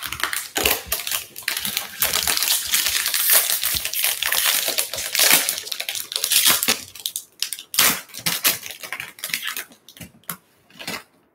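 Foil wrapper of a 2021 Topps Series 1 jumbo baseball card pack being torn open and crinkled by hand. It crackles densely for the first seven seconds or so, then gives scattered crinkles toward the end.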